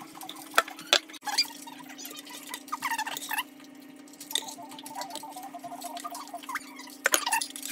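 Soup being served from a saucepan into a bowl: a ladle knocks against the pan and bowl a few times, with liquid dripping and pouring between the knocks, over a steady low hum.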